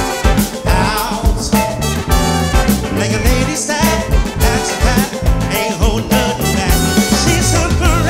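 Live funk band playing with a steady driving beat: saxophone and trumpet, electric guitar, drum kit and keyboard together in full ensemble.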